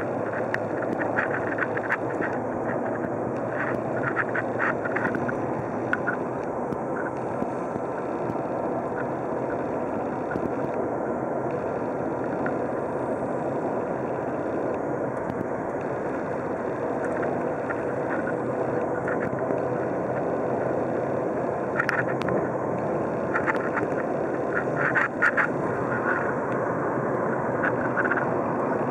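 Steady road and tyre noise with engine hum inside a car's cabin at highway speed, with a few brief clicks early on and again a little past the middle.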